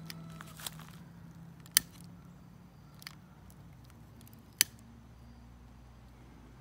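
Sharp clicks of a long-necked utility lighter's trigger as it is pressed to spark and relight the flame, two of them much louder and nearly three seconds apart, with a few fainter clicks between.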